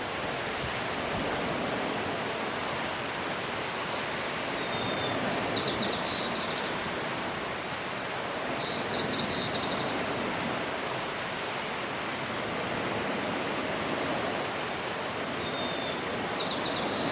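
Tree swallow calling three times, each time a short thin note followed by a quick burst of high twittering, over a steady rushing background noise.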